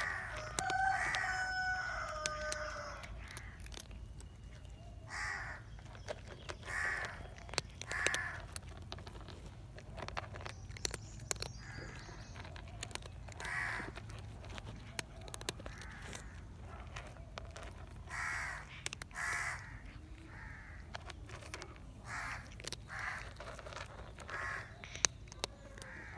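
A cat crunching dry kibble: many sharp, irregular crunches and clicks throughout. A rooster crows once in the first couple of seconds, a held call that drops in pitch at its end.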